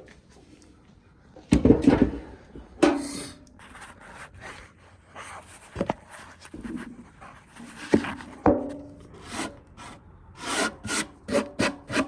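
Irregular rustling, rubbing and wooden knocks of things being handled and moved, with a brief creak or two.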